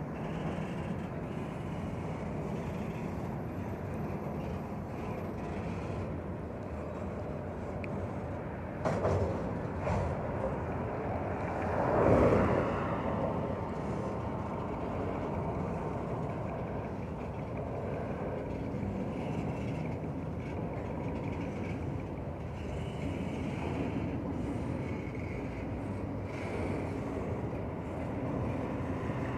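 Freight train cars rolling past on the rails with a steady rumble. There are a couple of sharp clanks about nine seconds in and a louder swell about twelve seconds in.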